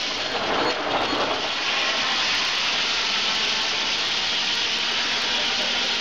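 Old circular sawmill running, its large head saw and top saw working a log on the carriage: a loud, steady hissing noise.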